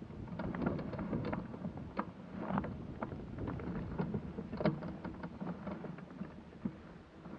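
Rustling and brushing in long wet grass, with irregular knocks and clicks as the hang glider's frame and the pilot's harness are moved about.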